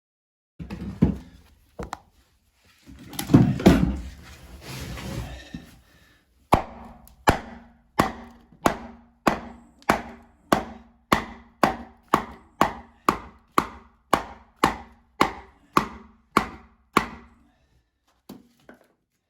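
Hammer blows, about twenty evenly paced strikes at roughly two a second, with a wooden knock to them. Before them, a few seconds of irregular knocking and scraping as something is handled.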